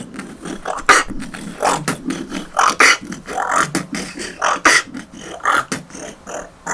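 Beatboxing: a mouth-made imitation of a Transformers robot transforming, a choppy, stop-start run of K and rolled-R sounds with quick clicks and mouth percussion.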